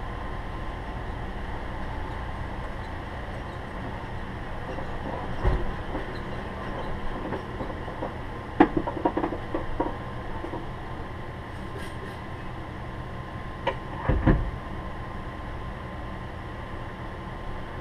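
Steady low hum of vehicles idling, with scattered clicks and knocks: a sharp knock about eight and a half seconds in followed by a short run of rattles, and a dull thud about fourteen seconds in.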